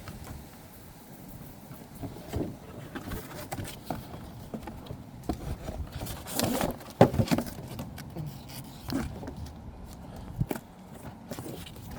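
Action figure and its packaging being handled while the twist ties are taken off: irregular rustles, clicks and light taps, with a busier, louder cluster about seven seconds in.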